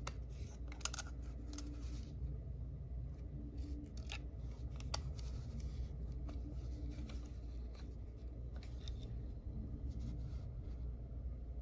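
Handling noise from a Sony WM-600 Walkman cassette player turned over in gloved hands: scattered sharp clicks and rubs of its plastic and metal casing, as the cassette lid is opened.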